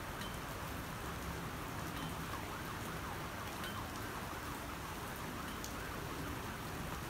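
Steady heavy rain falling, with a few single drips ticking close by. A faint siren wavers up and down in the middle of the rain.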